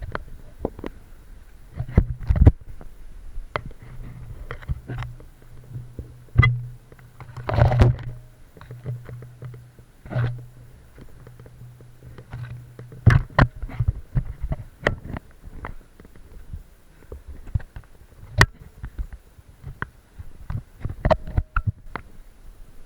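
Irregular knocks and clicks, some sharp and loud, over a low steady hum that stops a little past the middle.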